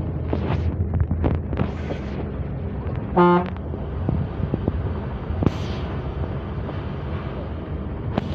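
ALS intercity bus running steadily on the road, with one short horn toot about three seconds in and a brief hiss a couple of seconds later.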